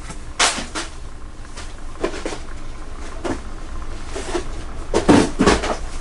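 Cardboard shoebox being handled: a handful of short knocks and scrapes of the box and its lid, the loudest near the end.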